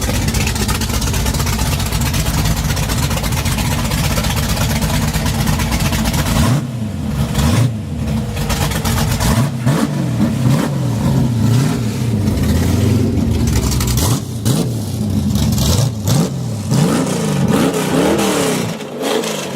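Big-block V8 of a 1968 Chevrolet Camaro, running steadily, then from about six seconds in revved over and over, the pitch rising and falling roughly once a second.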